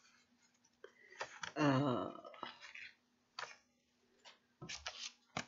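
Sheets of glossy junk mail and paper being handled, with scattered rustles, crinkles and clicks, under a faint steady electrical hum. About a second and a half in comes a short wordless vocal sound falling in pitch, the loudest thing.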